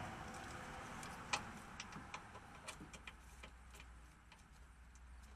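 Faint, irregular small metallic clicks and ticks, one louder about a second in, as a nut is started by hand on the sway bar bushing bracket bolt.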